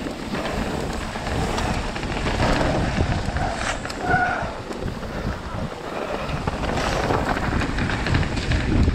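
Wind buffeting the camera's microphone while mountain bike tyres roll and rattle over a dirt and rock downhill trail. A brief high squeak comes about four seconds in.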